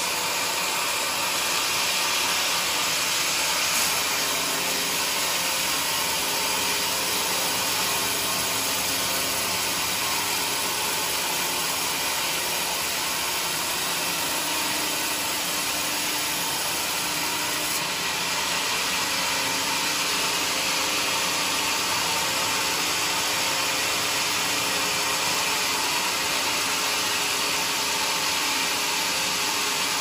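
Band sawmill running steadily, its blade cutting lengthwise through a bayur log.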